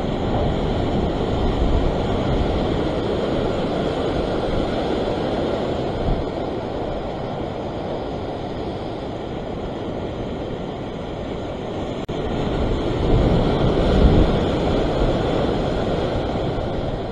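Sea surf washing and breaking over rocks, with wind buffeting the microphone; the surge swells louder about three-quarters of the way through.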